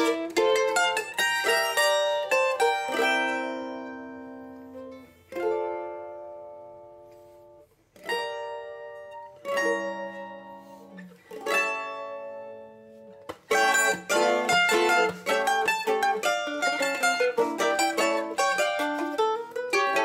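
Two Colombian bandolas playing a bambuco: quick plucked runs, then a slower stretch of single chords that ring and die away, from about 3 to 13 seconds in, before the quick picking resumes.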